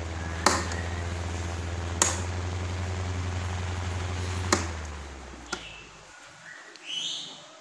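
Old Thai-made electric fan motor running with its blade fitted: a steady electrical hum and rush of air, broken by a few sharp clicks. About five seconds in, the hum dies away as the motor winds down, and a short rising squeak follows near the end.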